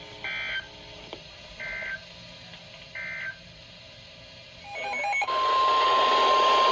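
NOAA Weather Radio emergency alert signalling. Three short warbling data bursts of SAME end-of-message code close the previous tornado warning. About five seconds in, a loud hiss of static starts together with the steady 1050 Hz weather-radio warning alarm tone, which announces the next tornado warning.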